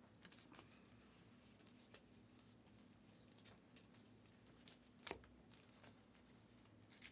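Near silence with the faint clicks and rustle of a stack of trading cards being flipped through by hand. The most distinct click comes about five seconds in, over a faint steady low hum.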